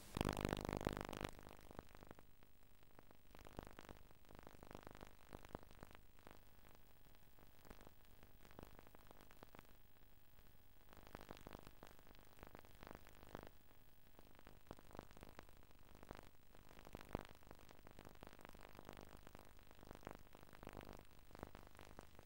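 Near silence: faint VHS tape hiss with scattered small clicks and crackles. A louder burst of noise fills the first second or so.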